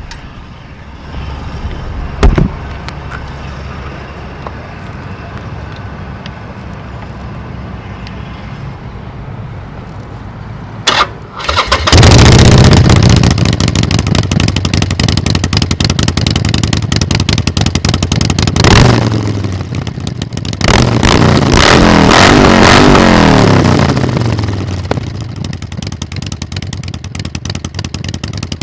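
Harley-Davidson Forty-Eight Sportster 1200's air-cooled V-twin engine running warm through Vance & Hines Mini Grenades exhausts, stationary. It idles with a brief loud pop about two seconds in, then is revved hard for several seconds from about twelve seconds in. After a short blip it gives a second long rev that climbs and falls, then drops back to idle.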